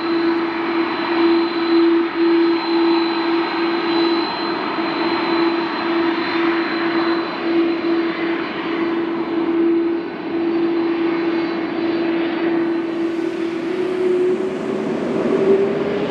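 Jet airliner's engines running at takeoff on the runway: a broad, loud jet noise with a steady humming tone that rises slightly near the end.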